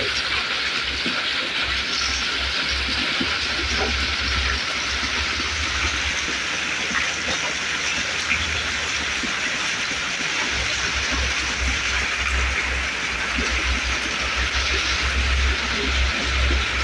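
Heavy rain pouring down steadily, with a low rumble that comes and goes underneath and swells in the second half.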